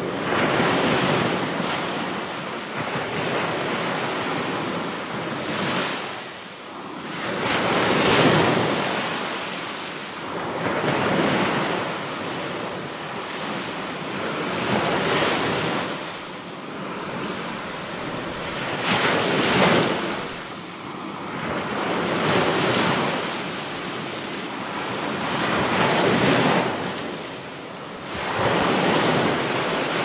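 Ocean surf: waves breaking and washing up the shore, swelling and ebbing every three to four seconds.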